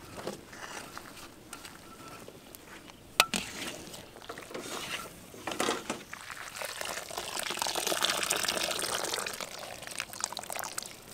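Hot water pouring and dripping off boiled noodles as a wire-mesh strainer lifts them from a wok and tips them onto a steel tray. A sharp metal clink comes about three seconds in, and a longer run of draining water follows later.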